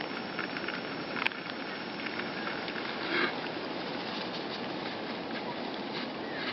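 Birds' wings fluttering in a few short bursts, the loudest about three seconds in, with a sharp click a little over a second in, over a steady background hiss like distant traffic.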